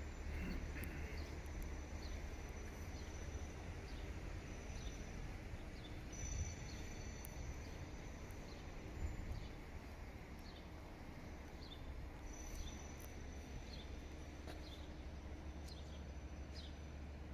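Outdoor ambience: small birds chirping in short high calls, about one a second, over a steady low rumble. Twice a thin high trill holds for about two seconds.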